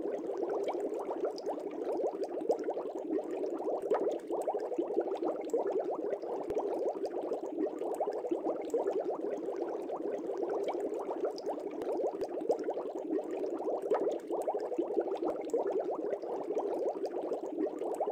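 Water bubbling continuously: a dense, even patter of small bubbles, like an aquarium's aeration.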